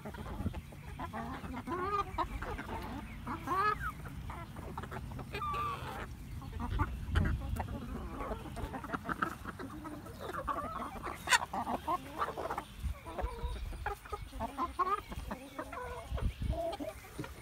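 A flock of chickens clucking and calling, many short calls overlapping, while they feed on scattered grain. A single sharp click stands out a little past the middle.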